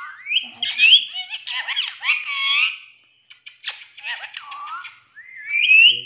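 Indian ringneck parakeet talking in a high-pitched voice: a run of short word-like phrases with sliding pitch, a brief pause about halfway, and a rising whistled note near the end.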